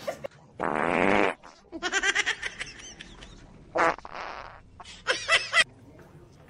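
Four short, buzzy, fart-like noises: the first is the longest, and the others come as quick rippling bursts with a wavering pitch.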